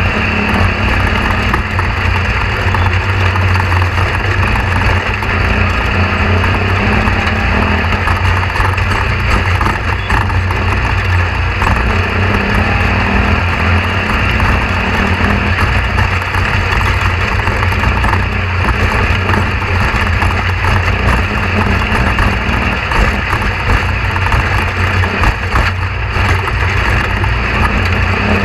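A steady, loud, low mechanical drone like an engine running, unchanging throughout.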